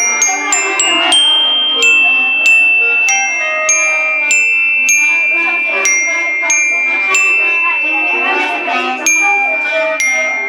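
Music led by a glockenspiel: a melody of struck metal notes at a steady pace, each note ringing on, over a softer accompaniment.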